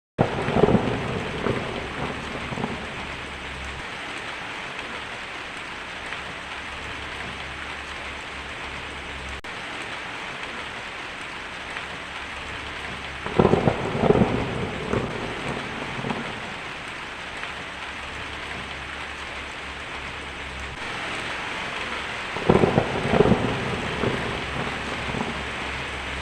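Heavy rain falling on a tin roof as a steady hiss, with three rolls of thunder: near the start, about halfway through, and near the end.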